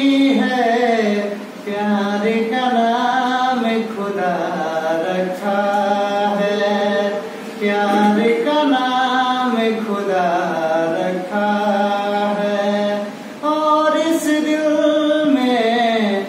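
A man singing a Hindi film song unaccompanied, holding long, drawn-out notes that bend slowly in pitch. The phrases are broken by brief pauses for breath every two to four seconds.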